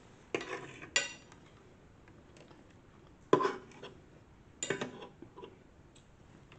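Metal fork clinking and scraping against a ceramic plate while gathering noodles, in four short bursts; the one about a second in rings briefly.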